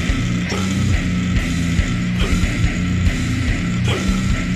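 Heavy metal band's demo recording: distorted electric guitar riffs over a full drum kit with a rapid kick drum.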